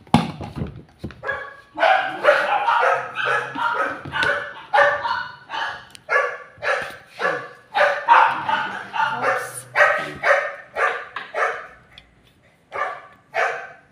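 Small dogs barking over and over, about two barks a second, with a short pause near the end: excited barking from dogs waiting to be fed. A single knock sounds at the very start.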